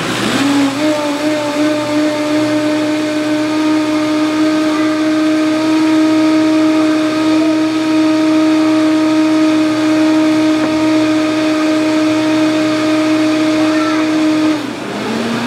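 High-powered countertop blender running at high speed on a thick cashew-cheese mixture, with a steady motor whine. The pitch rises as it comes up to speed just after the start, and near the end it drops to a lower speed.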